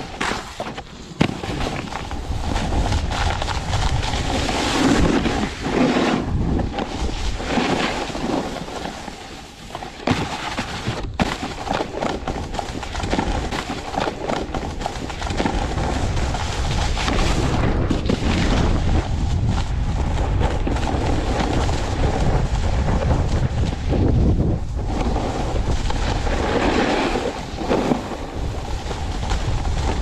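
Snowboard sliding and carving over hard-packed snow, a continuous scraping hiss that swells and eases with each turn, with wind buffeting a mouth-mounted GoPro. A couple of sharp knocks, the loudest about a second in.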